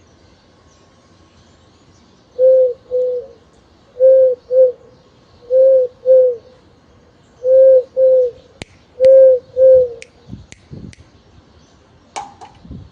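Dove cooing: five two-note coos, low and evenly paced, about one pair every second and a half. A few sharp clicks follow near the end.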